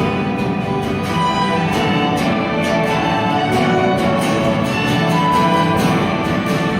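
A school string orchestra playing held chords along with a pop-rock band, over a steady beat.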